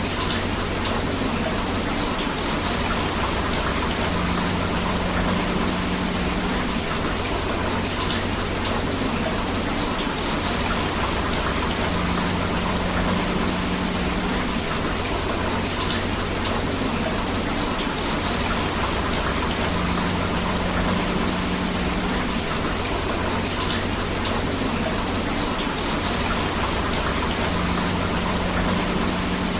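Steady rain with a flowing river: an even, unbroken rushing hiss. A faint low hum swells and fades about every eight seconds.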